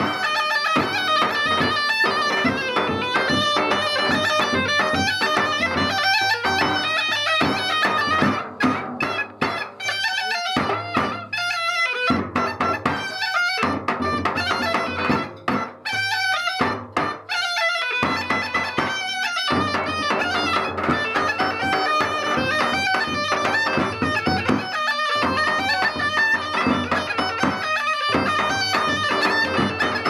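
Bulgarian gaida bagpipe playing a folk tune over its steady drone, with a tapan drum beaten along. The music breaks off briefly several times in the middle.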